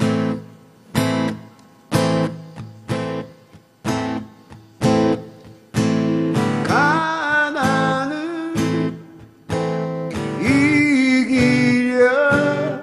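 Song introduction: a guitar strikes one strummed chord about every second. About six seconds in, a sustained lead melody with sliding pitch comes in over the strumming.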